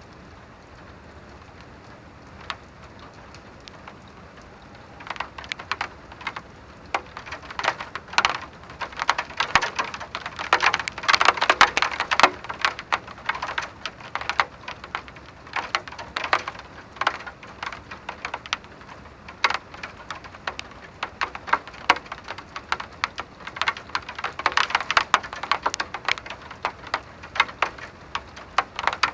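Rain, starting as a soft steady hiss, then about five seconds in heavy drops begin tapping irregularly and fast on a hard surface, thickest in the middle and carrying on as a dense patter.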